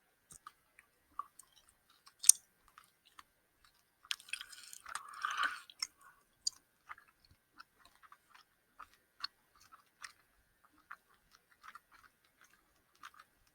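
Close-miked chewing of a gummy candy hamburger: wet mouth clicks and smacks scattered throughout, with one sharp loud click about two seconds in and a denser, noisier stretch of chewing from about four to six seconds. Picked up through a gaming-headset microphone.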